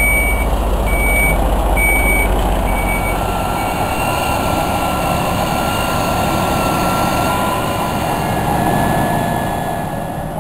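Fire truck's reversing alarm beeping about once a second over the rumble of its engine. The beeps stop after about three and a half seconds, and the engine noise carries on.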